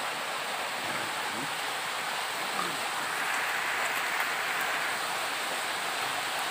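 A steady hiss of water, the sound of rain or running water, holding at an even level and swelling slightly in the middle.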